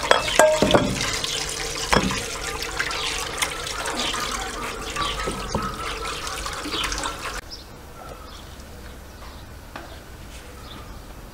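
Running water as raw chicken drumsticks are rinsed by hand, with scattered knocks against an enamel bowl. The water cuts off suddenly about two-thirds of the way through, leaving a much quieter background.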